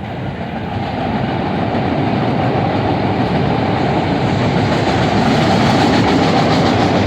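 Elevated rapid-transit train running into the station, its wheel and track noise growing steadily louder over the first couple of seconds, then holding loud.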